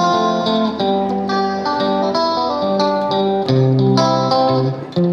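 Background music led by plucked guitar, picking out a run of short notes over held lower tones.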